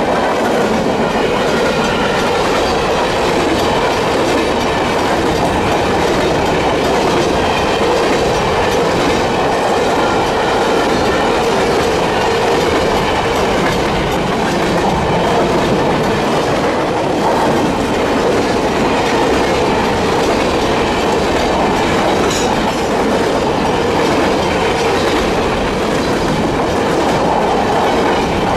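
Covered hopper cars of a long freight train rolling past at a steady speed, steel wheels clacking over the rail joints, with the crossing's mechanical bell ringing over the rumble.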